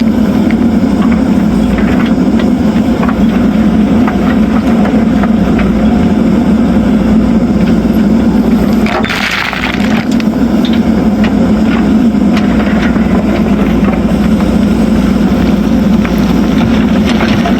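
JCB backhoe loader's diesel engine running steadily under load while gravel is handled, with scattered clacks of stone and a short gravelly rush about halfway through as the engine note dips.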